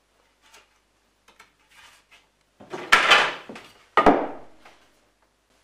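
Wooden knocks as a larch board is handled and set into a wooden splitting holder: a few faint taps, then two sharp knocks about three and four seconds in.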